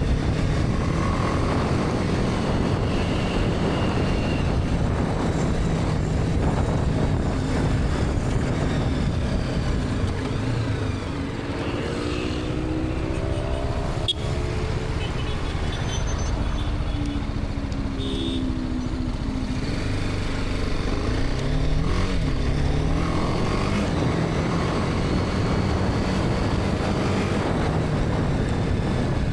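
BMW G310R's single-cylinder engine running while riding, over steady road and wind noise. Its pitch rises and falls a few times midway, as the bike speeds up and slows.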